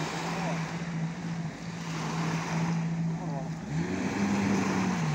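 Jet ski engine idling steadily, its revs rising about four seconds in and dropping back near the end, over small waves washing on the beach.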